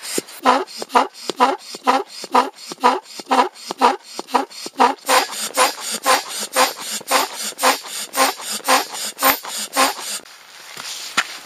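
Foot pump worked underfoot, inflating an inflatable kayak's tube through a hose: about two strokes a second, each a squeaky puff of air. The pumping stops about ten seconds in.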